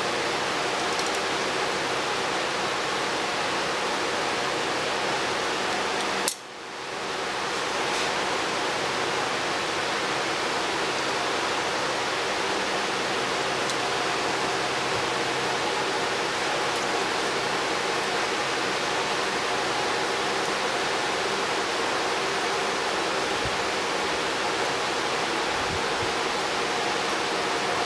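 Steady rushing noise with a faint underlying hum. A sharp click about six seconds in is followed by a brief sudden drop before the noise returns.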